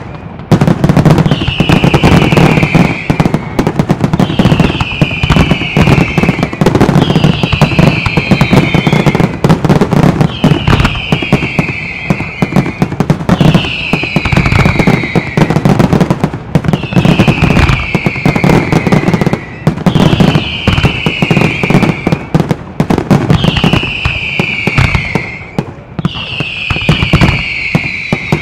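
Fireworks display: aerial shells bursting and crackling in dense, rapid succession. A high, falling whistle-like tone recurs about every two seconds over the bangs.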